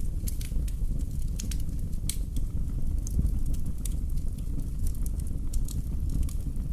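Wood fire burning in a fireplace: a steady low rumble of the flames with irregular sharp crackles and pops from the burning logs.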